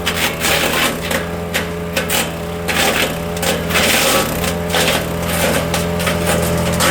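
Wood chipper with a 420cc engine chipping branches: rapid irregular cracking and snapping of wood over the engine. The engine note drops under the load and recovers about two-thirds of the way through.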